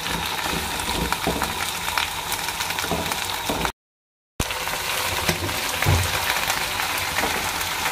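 Cut okra sizzling steadily as it fries in mustard oil in a nonstick wok, turned now and then with a perforated spoon. The sound cuts out completely for about half a second near the middle.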